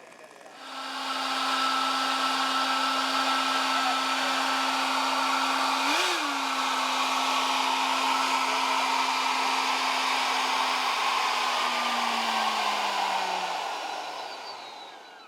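RC model jet engine running up on the ground: a steady high whooshing whine that comes on about a second in, gives one brief rise in pitch around the middle, and spools down with a falling pitch near the end.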